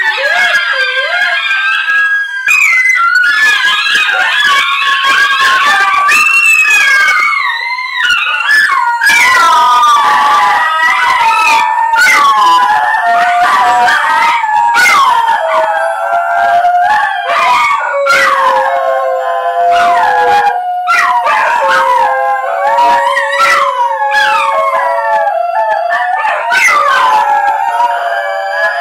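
Three basenjis howling together, their voices overlapping in long wavering, gliding notes that break off and start again.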